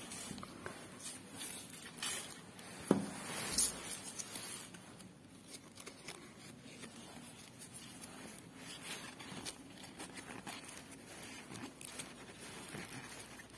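Faint rustling and crackling of paper and stretchable tape being handled and adjusted by hand, with a few louder crackles about two to four seconds in.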